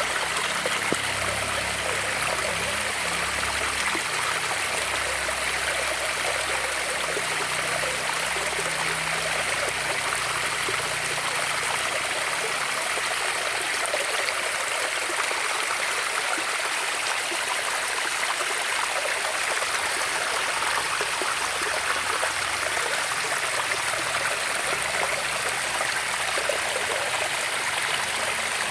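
Running water flowing steadily and evenly, with no breaks.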